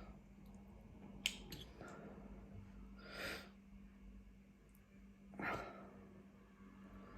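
A person eating spicy noodles, breathing hard, over a low steady hum: a sharp click about a second in, then two short breaths about two seconds apart.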